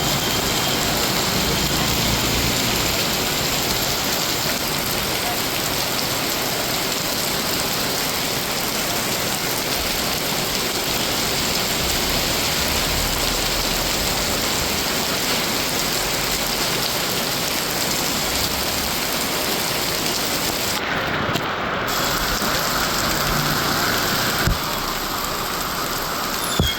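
Heavy torrential rain pouring down, a steady dense hiss of rain hitting surfaces, with one brief sharp knock near the end.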